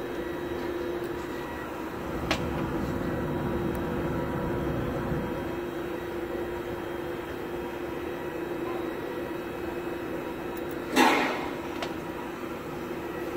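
Hand work on the open cylinder head of a Caterpillar C15 diesel: a light click about two seconds in and a short clatter of parts near the end, over a steady background hum.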